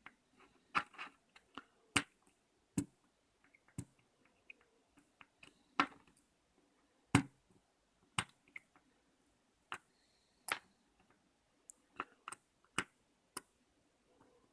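Sharp little metal clicks and taps at irregular intervals, roughly one a second, from working stuck spring-loaded tumblers out of a Citroen C1 door lock cylinder.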